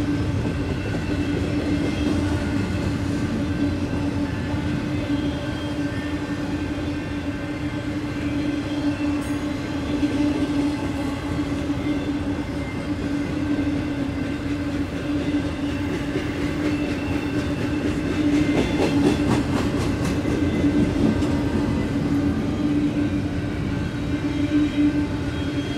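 Union Pacific double-stack intermodal freight train, its container well cars rolling past at speed: a steady rumble with a constant hum. About three quarters of the way in comes a run of rapid, evenly spaced wheel clicks.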